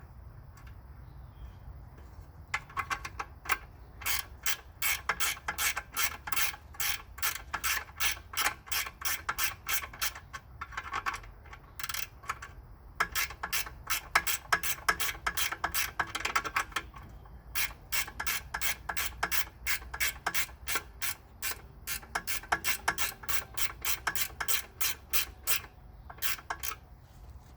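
Ratchet wrench clicking in long, even runs of about four clicks a second, with short pauses, as bolts holding the motorcycle's fuel tank are backed out.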